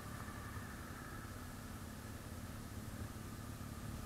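Motorcycle engine idling steadily with a low, even hum.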